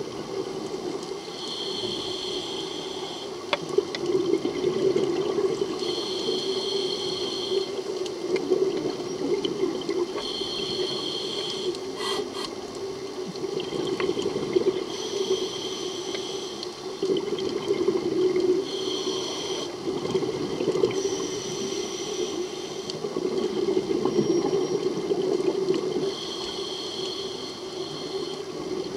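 Scuba diver breathing through a regulator underwater: a hissing inhale with a faint high whistle, then a gurgling rush of exhaled bubbles, repeating in a slow, even rhythm about every four to five seconds.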